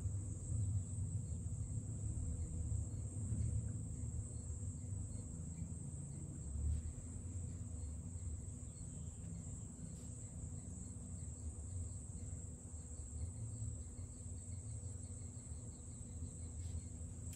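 Quiet background: a steady high-pitched chirring over a low, uneven rumble.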